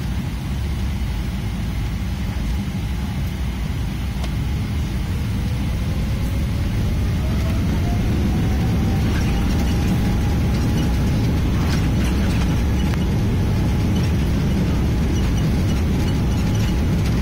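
Jet airliner heard from inside the cabin: a steady low engine rumble, with a thin whine rising in pitch a few seconds in while the overall noise grows louder, as the engines power up.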